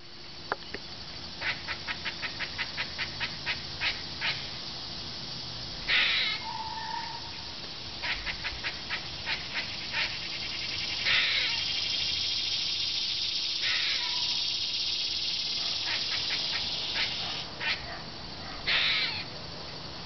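Eastern gray squirrel calling in alarm: runs of short sharp chucks at about four a second, broken every few seconds by a longer hoarse rasping call. This kuk-and-quaa pattern is the scolding a squirrel gives at a threat.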